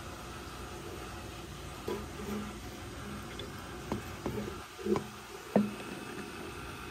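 A handful of light knocks and taps on a clear plastic tub as a baby box turtle is handled and set down in it, the sharpest one near the end, over a steady low hiss.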